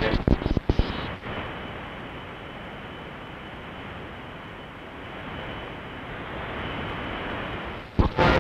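Icom IC-R70 shortwave receiver tuned off a station into an empty stretch of the 19-metre band, giving steady static hiss. Broken snatches of station audio come through during the first second and again near the end as the dial passes signals.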